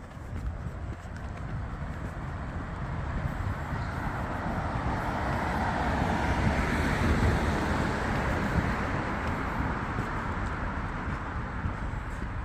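A car passing on the road, its tyre and engine noise swelling to a peak about halfway through and then fading, over a steady low rumble.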